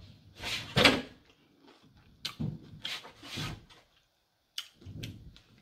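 A person eating tacos close to the microphone: a loud bite about a second in, then chewing noises mixed with several sharp clicks and knocks.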